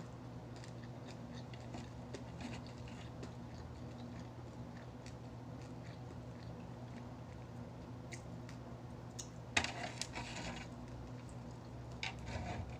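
Eating sounds: faint clicks and taps, then two louder crunching bursts, one about ten seconds in and one near the end, over a steady low hum.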